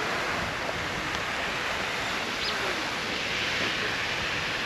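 Steady rushing noise outdoors, even throughout.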